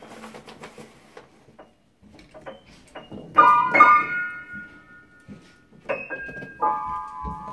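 Upright piano keys slapped by a baby's hands: loud clusters of several notes at once, twice about three seconds in and again twice near the end, each left ringing and fading.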